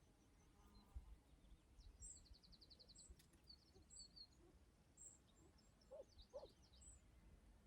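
Pheasant giving two short, soft, low hoot-like calls in quick succession about six seconds in, faint. Small birds chirp and trill high in the background.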